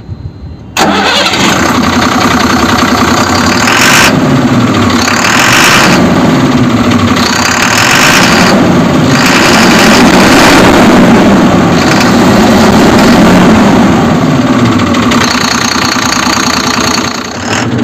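The Ashok Leyland AVTR 1920 truck's 5,660 cc H-series inline-six diesel cranks and starts about a second in. It then runs loudly, its engine speed rising and falling several times.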